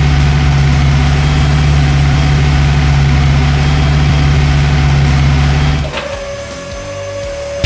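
A dubbed-in engine idling sound, loud and steady with a low hum, that cuts off about six seconds in. After it a quieter steady tone holds.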